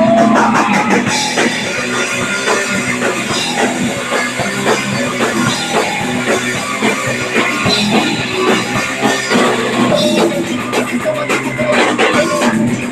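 Punk rock band playing live, with drum kit and electric guitars.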